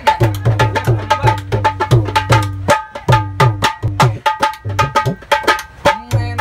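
Dholak played by hand in a brisk, steady rhythm of about three to four strokes a second: sharp slaps on the treble head over deep bass strokes whose pitch slides down after each hit.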